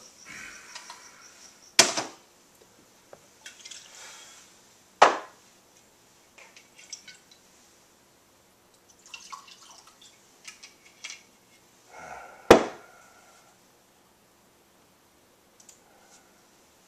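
Hard objects set down on a wooden desk: a desk-phone handset and a drinking glass, giving three sharp knocks, the last the loudest, with soft rustling and small clicks in between.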